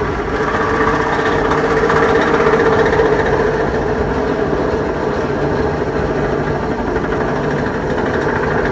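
12 V electric winch motor running steadily and loudly under heavy load, pulling against an anchored vehicle and drawing over 300 amps.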